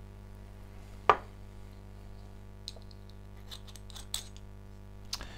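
A sharp knock about a second in, then a few light clicks and taps: a glass whisky miniature and small glasses being handled and set down on a wooden board.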